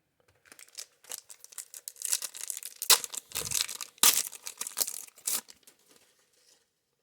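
Wax pack wrapper of a 1990 Score baseball card pack being torn open and crinkled, a run of sharp crackles with two loudest rips about three and four seconds in.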